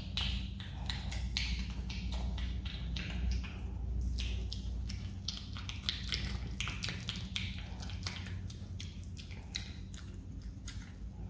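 Himalayan marmot chewing soft jelly: a dense, irregular run of short clicks and smacks from its mouth and teeth, over a steady low hum.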